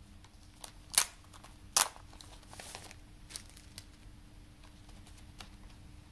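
A CD case in clear plastic wrapping being handled and turned over: the plastic crinkles, with two sharp clicks about one and just under two seconds in, then lighter crinkling and a few faint ticks.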